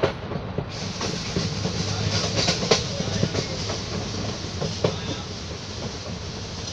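Passenger train running at speed, heard from inside the carriage: a steady rumble and rush with irregular clacks and knocks of the wheels on the rails, a couple of them sharper.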